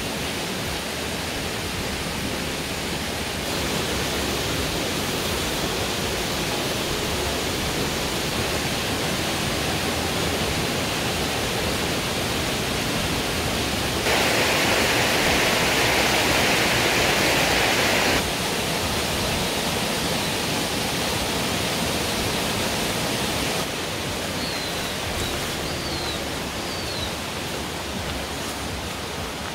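A steady outdoor rushing noise, like running water or wind, with no distinct events, its level jumping abruptly a few times. Near the end come a few short, high chirps.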